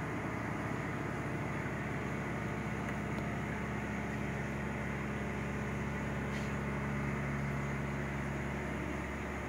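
Steady hum and hiss of running reef aquarium equipment such as pumps and water circulation. A low hum grows stronger about two seconds in and drops back near the end.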